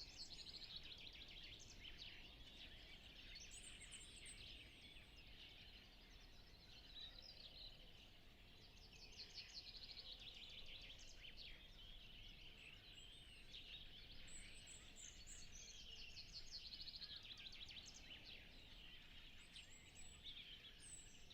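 Faint dawn chorus: many songbirds singing at once, overlapping trills and chirps without a break, over a low steady background hum of the countryside.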